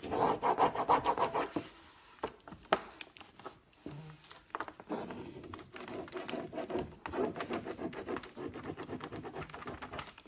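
Quick back-and-forth scratchy rubbing of a rub-on decor transfer being burnished onto a fireplace screen. It eases off to a few scattered scrapes about two seconds in and picks up again about five seconds in.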